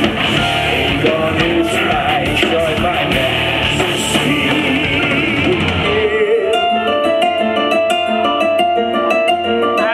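Heavy metal band playing live, with drums, bass, distorted guitars and keyboards. About six seconds in, the drums and low end drop out, leaving a fast run of single notes.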